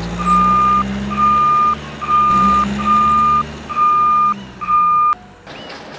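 Vehicle reversing alarm beeping steadily, about one beep a second, over a low engine hum. It stops about five seconds in.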